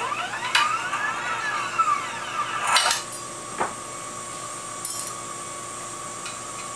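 CNC wire bender's motor whining up and then back down in pitch as it drives through a bend cycle, with a few sharp metallic clicks. From about three seconds in it holds a steady high hum.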